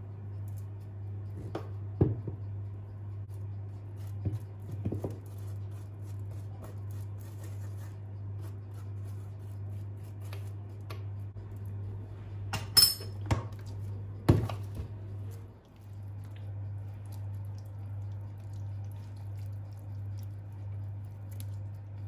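A few light taps and clinks of a metal spoon and kitchenware over a steady low hum. There is a sharper clatter of clinks and knocks a little past halfway.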